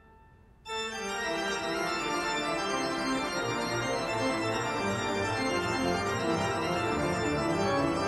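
Background music played on an organ-like keyboard, starting suddenly about a second in after a brief near-silent gap.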